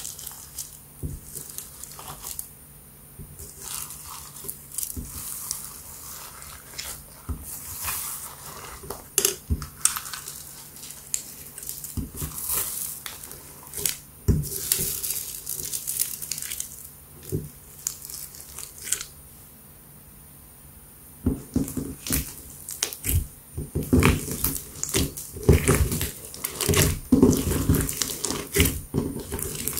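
Hands squishing and kneading clear slime packed with plastic beads, sprinkles and paper banknotes: irregular wet squelches, crackles and crinkles with small clicks. The sounds get louder and busier in the last third.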